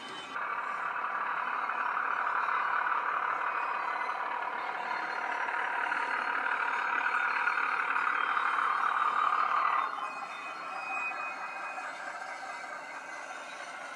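DCC sound decoder in a Bachmann Class 03 model shunter playing the diesel engine running under load, heard through the model's small onboard speaker. About ten seconds in the engine note drops sharply to a quieter level, with a thin high tone for a moment after.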